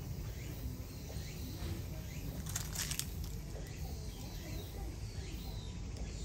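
Outdoor background: a steady low rumble with faint bird chirps, and a brief rustling hiss about two and a half seconds in.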